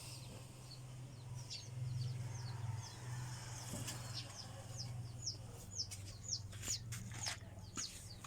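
A bird chirping over and over in short high notes, about two a second, over a steady low hum, with a few sharp clicks in the second half.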